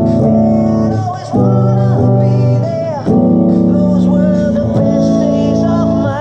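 Stratocaster-style electric guitar playing rock chords through a small amp, over fuller accompaniment. The chords change about a second in and again about three seconds in.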